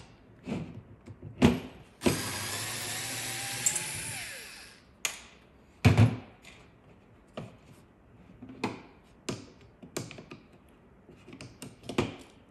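A small cordless electric screwdriver runs for about two and a half seconds, backing a Torx screw out of a power-tool battery's circuit board. Sharp knocks and smaller clicks of tools and parts being handled on a table come before and after, the loudest just before the motor starts and just after it stops.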